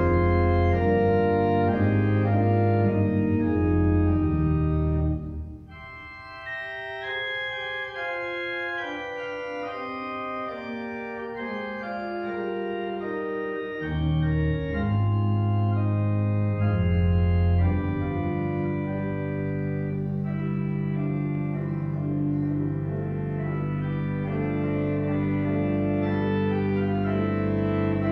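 Church pipe organ playing slow, sustained chords over a deep pedal bass. About five seconds in the bass drops out and the music goes quieter on a lighter registration. The pedal bass comes back around fourteen seconds in, and the piece settles into long held chords.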